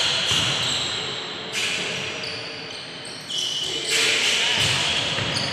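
Basketball being dribbled on a hardwood gym floor during play, with several sharp, high-pitched squeaks from sneakers on the court.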